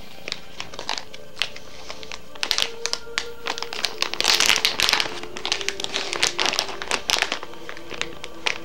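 Close-up crinkling and rustling with scattered taps and clicks from hands handling things, louder about four to five seconds in, over steady background music.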